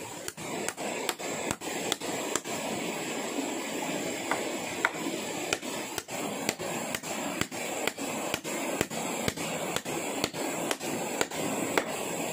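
Regular rhythmic strokes of scraping noise, a little over two a second, with a thin steady high-pitched tone throughout.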